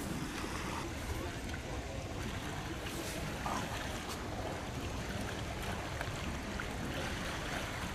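Water lapping and trickling against a harbour pier over a steady low rumble.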